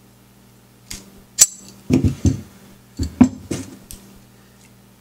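Brass gas-welding torch parts clinking and knocking together as they are taken apart and set down on a table: a string of sharp metal clicks and taps from about a second in to about four seconds, the loudest near a second and a half.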